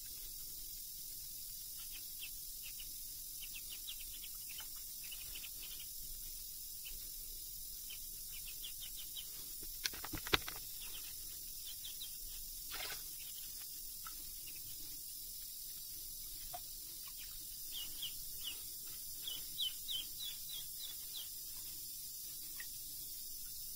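Domestic duckling peeping in runs of short high chirps over the steady hiss of a tap running into a water-filled kitchen sink, with two sharp clicks about ten seconds in.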